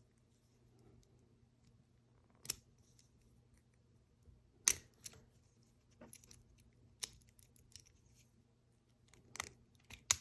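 Scattered short, sharp metallic clicks and taps from a dimple lock cylinder being handled while its core is worked loose by hand, about six spread across several seconds over a faint steady hum.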